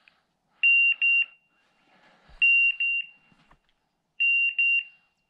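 A dog's beeper collar sounding its point signal: short, loud, high-pitched beeps in groups of two or three, repeating about every two seconds. This signals that the pointer has stopped and is holding point on a woodcock.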